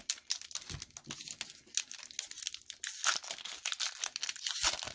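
Foil wrapper of a Pokémon Darkness Ablaze booster pack crinkling in the hands as it is torn open, a dense run of sharp crackles.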